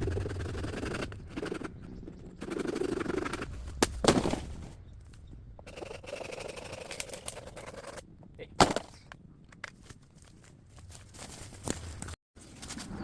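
Sharp cracks and knocks amid rustling, from bamboo being chopped and handled; the two loudest cracks come about four seconds and eight and a half seconds in.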